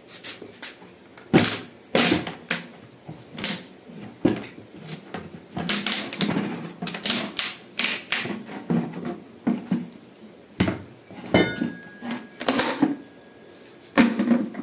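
Plastic oil-bucket lid being levered and knocked off with a steel bar: a run of irregular sharp knocks and clacks with scraping of plastic between them as the lid's rim is prised up. A brief high squeak comes about eleven seconds in.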